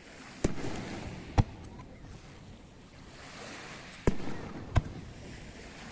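Aerial fireworks shells bursting: four sharp bangs in two pairs, the first pair in the first second and a half and the second about four seconds in, each followed by a rolling echo.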